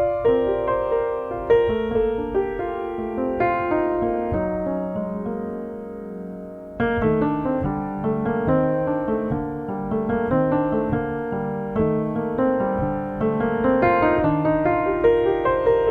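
Solo piano postlude: a melody and chords played slowly. About halfway through, a chord is held and left to fade, then the playing comes back in louder.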